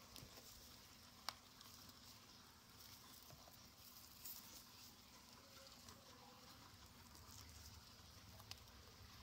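Faint crackling and rustling of guinea pigs munching hay, with a sharp click about a second in.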